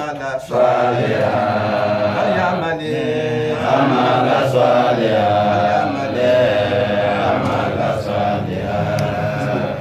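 Men's voices chanting a melodic Islamic recitation, with long held notes that rise and fall.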